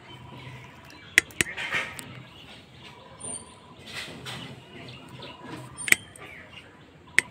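A metal spoon clicking and scraping against a small plastic plate a few times while someone eats, the sharpest clicks about a second in, near six seconds and near the end. Birds chirp faintly in the background.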